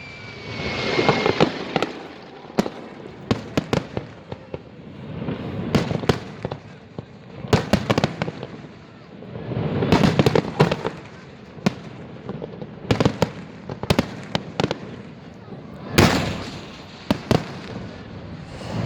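Fireworks salute: sharp bangs and crackles, with rolling booms every few seconds, and a slightly falling whistle in the first second or so.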